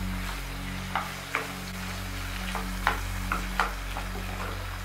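Cubes of swordfish and tomato frying in oil in a nonstick pan with a steady soft sizzle, while a wooden spatula stirs them, knocking against the pan a few times.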